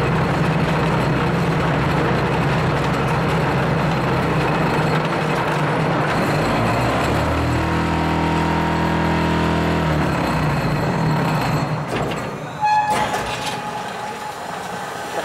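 Hydraulic concrete block-making machine running with a steady loud mechanical hum, joined midway by a deeper, stronger droning for about three seconds. About twelve seconds in the running noise drops away, followed by a sudden loud burst and quieter clanks.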